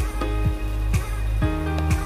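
Background music: a melody over low bass notes with a regular beat, about two beats a second.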